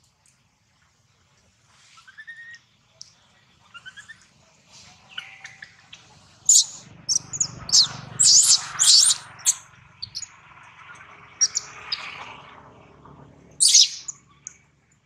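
Baby macaque screaming: a rapid series of short, shrill cries, loudest a few seconds in and again near the end, after softer rising squeaks. These are distress cries as its mother holds it down.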